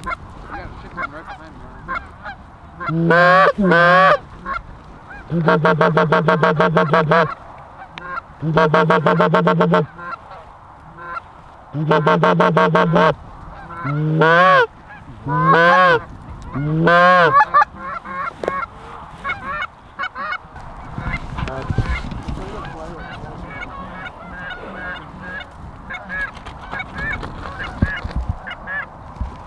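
Goose calls blown close by, a series of loud honks and clucks, some held and pulsing, some short with bending pitch, used to coax in a flock of geese. From about 18 seconds in, many fainter goose honks and clucks go on over a low wind rumble.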